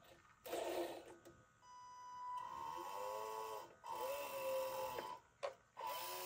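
RC Mack RD dump truck's electric drive motor and gearbox whining as the truck creeps forward in short spurts, the whine rising and falling in pitch about three times.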